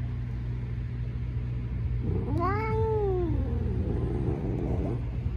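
A domestic cat meows once, a long call about two seconds in whose pitch rises and then falls, over a steady low hum.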